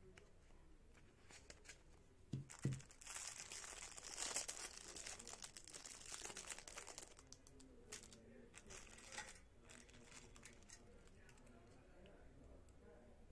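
Two soft knocks, then a thin clear plastic bag crinkling for several seconds as a flint fire starter is handled and unwrapped, followed by scattered light clicks and rustles as small metal and plastic survival-kit items are handled.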